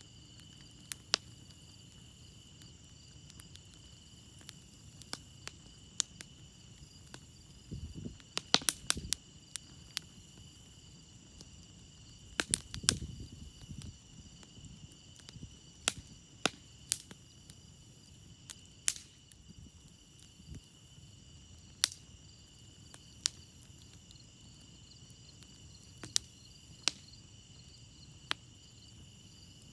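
Campfire crackling, with sharp single pops every second or two and two brief, louder flurries of pops over a low rush; crickets chirp steadily behind it.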